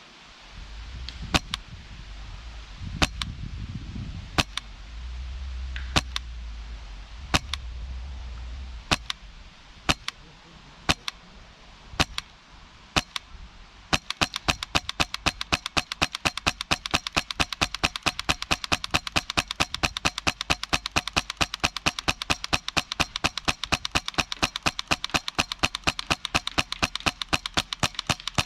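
PolarStar Kythera HPA airsoft rifle firing: single sharp pops about a second apart, then from about halfway an even, rapid string of shots at about four or five a second. Wind rumbles on the microphone in the first few seconds.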